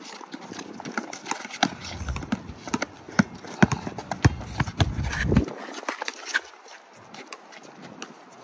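A basketball bouncing on a concrete court, mixed with players' sneakers slapping and scuffing as they run. It comes as a fast, irregular run of sharp knocks that is busiest in the middle and thins out near the end.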